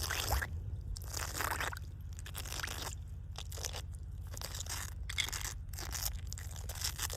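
Water splashing in irregular bursts, over a steady low hum.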